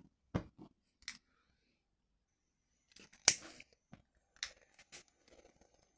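Quiet, scattered sharp clicks, the loudest about three seconds in, as a lighter is worked at the firebox to light the gas burner of a 1/12 scale Rider-Ericsson hot air engine model.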